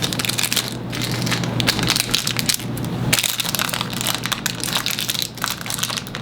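Plastic wrapping crinkling and crackling continuously as a small toy package is handled and opened.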